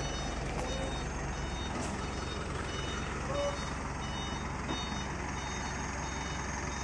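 Fire engine's reversing alarm beeping steadily, a little more than once a second, over the truck's engine running.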